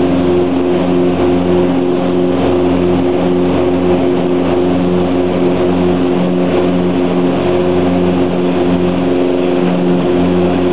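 Piper Twin Comanche's two piston engines and propellers heard from inside the cabin during the climb after take-off: a loud, steady drone with a slow regular throb running through it.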